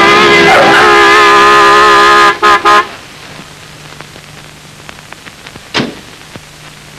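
Car horn sounding one long blast and then two short toots, followed by a car engine running quietly with a steady low hum.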